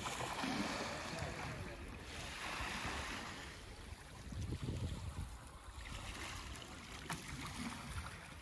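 Small sea waves washing onto a gravel beach, swelling and fading several times, with wind buffeting the microphone.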